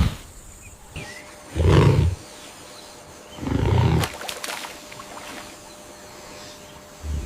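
A large wild animal growling: two deep growls about two seconds apart, each about half a second long, then a brief third one near the end, with a few sharp clicks just after the second.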